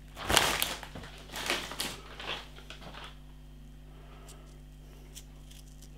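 Bag of McCoy's Muchos tortilla crisps crinkling and rustling as it is handled, in a few short bursts during the first three seconds, then only a faint steady hum.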